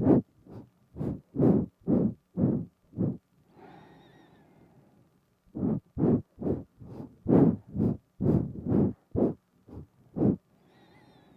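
Close-up nose breaths huffed right onto a binaural microphone, in quick runs of short sniffing puffs about two or three a second. They stop for about two seconds in the middle and again near the end, leaving only a faint breathy hiss.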